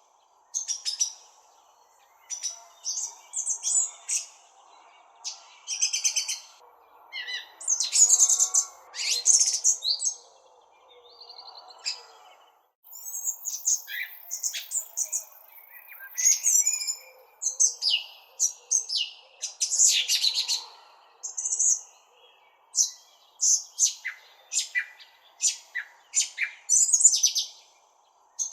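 Birds chirping: a continual run of short, high chirps and quick trills, sometimes several a second, with brief gaps between clusters, over faint steady background noise.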